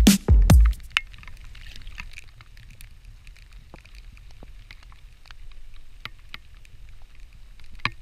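Two heavy beats of electronic drum-machine music in the first second. Then wind rumbles on the microphone, with scattered small clicks and rustles of handling.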